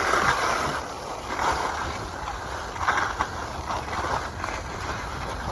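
Skis sliding over snow: a steady rushing hiss with a low rumble, and a swishing scrape every second or so.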